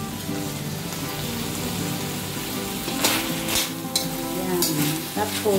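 Chopped pork frying in a wok, a steady sizzle now that its liquid has cooked away. A metal spatula scrapes and stirs through the meat and chilies several times in the second half.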